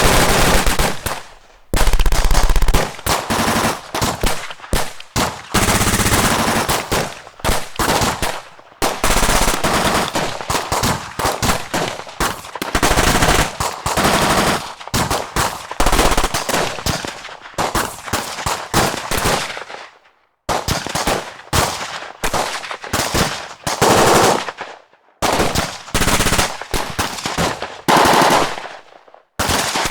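Battle gunfire sound effects: dense automatic-weapon fire mixed with single shots, in rapid bursts that overlap almost without pause for the first two-thirds, then come in separate volleys with short silences between.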